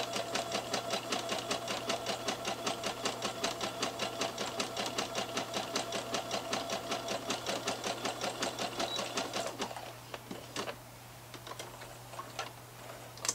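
Electric domestic sewing machine stitching a seam at a steady, fast rhythm of about six stitches a second, stopping about nine and a half seconds in. A few light clicks follow.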